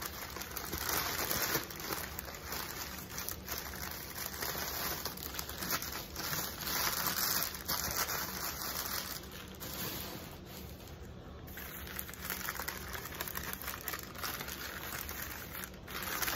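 Tissue paper and gift wrapping rustling and crinkling as a package is unwrapped by hand, in uneven handfuls.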